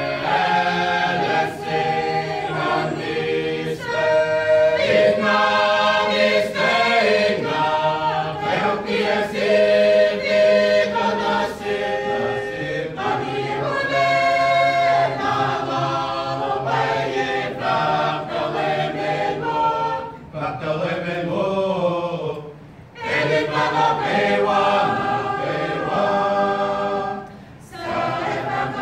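A mixed choir of men and women singing together a cappella, holding notes in harmony, with a few short breaks between phrases in the second half.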